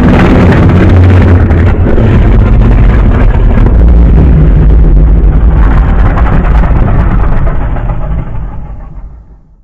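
A loud, low rumbling sound effect with a crackling edge that holds steady, then fades away over the last two seconds or so.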